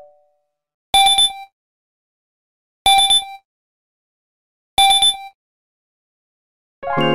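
Nokia 5310 XpressMusic alert tone: a short electronic chime sounding three times, about two seconds apart. Just before the end, a longer, fuller musical alert tone begins.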